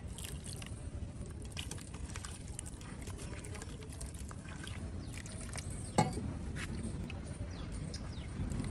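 Hand squeezing and mixing flour and water into a wet batter in a stainless steel bowl, with water pouring in at first and small wet squelches and splashes throughout. A single sharp knock about six seconds in.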